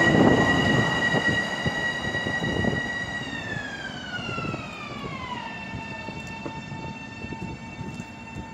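Long Island Rail Road M7 electric train's propulsion whine: a steady high tone that glides down to about half its pitch between about three and five and a half seconds in, then holds lower and fainter. A low rumble fades steadily under it as the train draws away.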